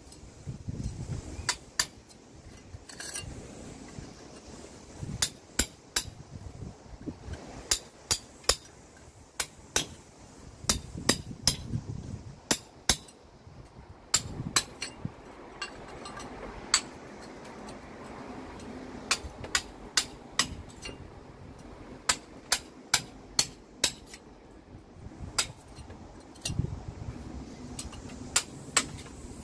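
Hammer striking a thin plugging chisel to rake old mortar out of brick joints by hand: sharp metallic strikes in irregular runs, often several in quick succession, with short pauses between.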